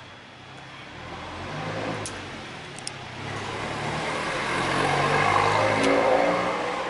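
A motor vehicle passing close by: an engine hum with road noise that swells to its loudest about five to six seconds in, then fades. A few sharp clicks come about two and three seconds in.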